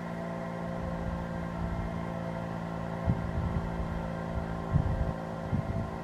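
Outdoor warning siren sounding a steady, unwavering tone, with several pitches stacked together. Low gusts of wind buffet the microphone now and then, loudest about three seconds and about five seconds in.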